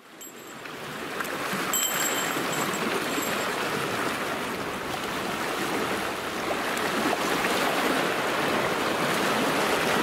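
Small waves of the Sea of Azov washing against the shore, a steady rush that fades in over the first second or so after a brief moment of silence.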